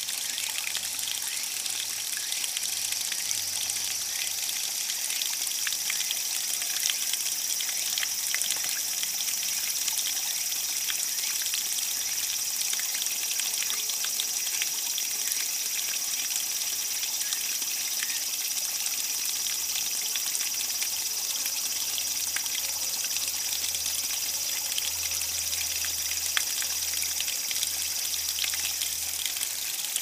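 Small waterfall splashing into a shallow pool and brook: a steady rush of falling water with trickling. A cicada's steady high-pitched drone runs over it.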